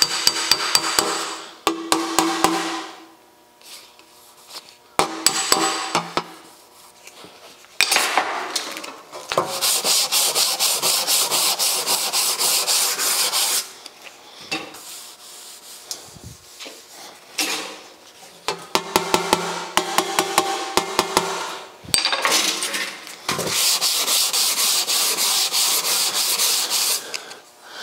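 Sandpaper on a hand sanding block rubbed back and forth in quick strokes across a bare steel fender, in two long spells. Between them come bouts of light tapping on the metal panel, which rings briefly, to knock down the last small bumps.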